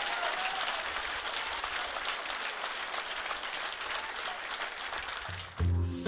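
Audience applause, a steady even clatter of many hands clapping. About five and a half seconds in it is cut off by guitar music.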